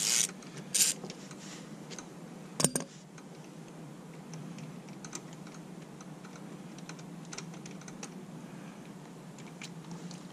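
Ratchet wrench and socket clicking while unscrewing a motorcycle's oil drain plug: a few sharp clicks in the first three seconds, the loudest near three seconds in, then light irregular ticking.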